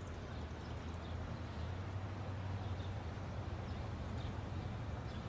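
Low, steady engine rumble of a classic American car driving slowly toward the listener, growing slightly louder, with faint scattered ticks above it.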